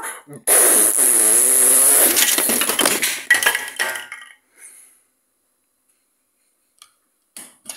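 A long, loud blast made with the mouth, a hissing, buzzing raspberry standing for the toy dog breaking wind, with plastic Duplo blocks clattering and clinking near its end as the train is knocked over. Then it goes quiet apart from a couple of small clicks.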